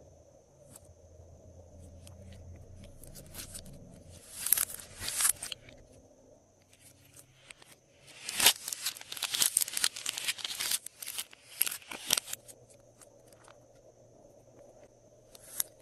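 Glossy slime being squished and stretched by hand, giving two spells of sticky crackling and popping, the second longer, with a single pop near the end.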